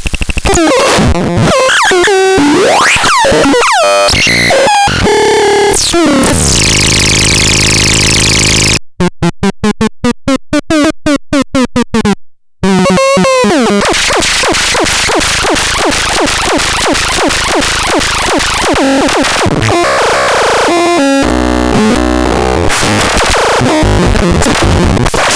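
Megastron MGT 1 making harsh electronic synthesizer sounds: fast rising and falling pitch sweeps, then a stuttering, rapidly chopped stretch about nine seconds in that ends in a brief cut-out, then a dense noisy drone.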